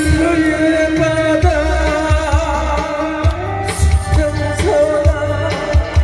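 A song performed live: a singing voice over amplified accompaniment with a steady drum beat.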